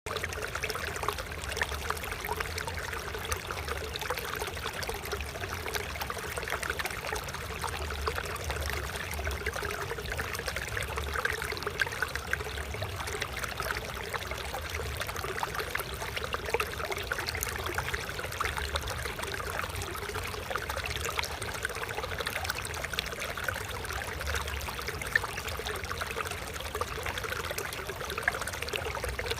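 Flowing water trickling and splashing steadily, with a low rumble underneath.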